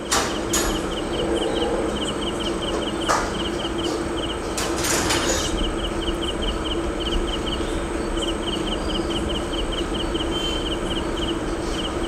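Crickets chirping in trains of quick, even pulses over a steady low hum. A few brief knocks and a short scrape come through, one near the start and a longer one around the middle.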